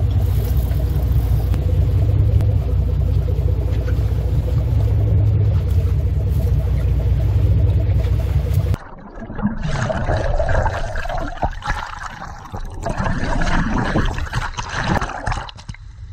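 A boat's engine running with a steady low rumble. About nine seconds in it cuts off suddenly, and an uneven rushing noise follows.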